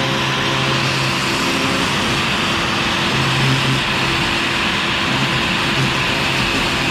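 CNC router spindle running steadily while a 1/4 inch O-flute bit cuts PVC, a high whine and hiss with a lower hum that swells and fades several times.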